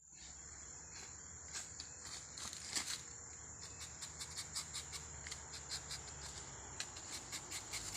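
Insects trilling steadily on one high note, over irregular short clicks and scrapes, the loudest a little before three seconds in.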